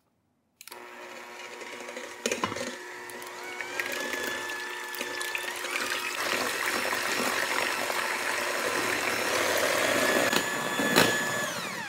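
Electric hand mixer starting about half a second in and running steadily at medium speed, its beaters whipping egg whites in a stainless steel bowl to the foamy stage, with a few clicks of the beaters against the bowl. The motor winds down and stops just before the end.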